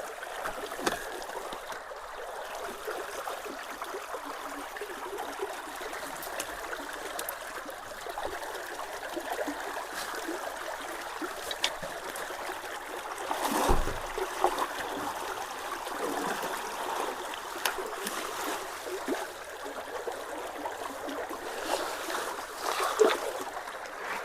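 Water running and trickling steadily through a partly blocked road culvert. A few short, sharp sounds stand out over it, the loudest about fourteen seconds in.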